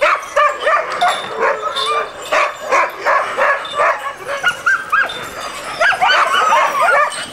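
A pack of sled dogs barking and yipping, many short calls several a second from several dogs at once, crowding together more thickly near the end.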